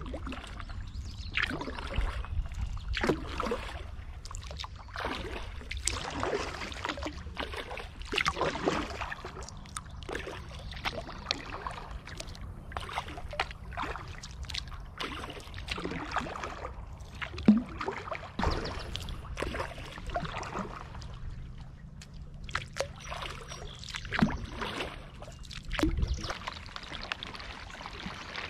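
Kayak paddle strokes dipping and splashing in the water at an uneven pace of about one a second, over a steady low rumble.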